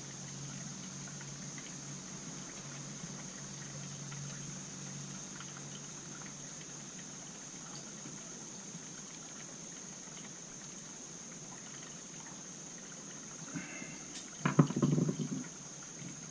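Carburetor parts handled by hand on a workbench: faint clicks, then a brief clatter about fourteen seconds in. A steady low hum and a high-pitched whine run underneath.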